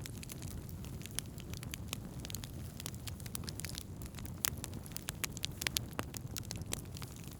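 Wood campfire burning, with dense irregular crackles and snaps of burning wood over a steady low rumble of the flames; one sharper pop about four and a half seconds in.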